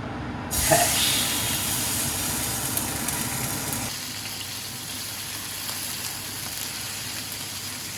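Masala-coated mackerel sizzling as it fries in a pan, the sizzle starting suddenly about half a second in with a light knock as the fish goes in, then running steadily.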